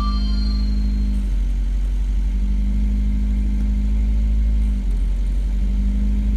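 Steady low droning hum from a car's wheel hub turning with the wheel fitted, under investigation for abnormal hub-bearing noise. Its pitch shifts slightly about a second in and again near five seconds in.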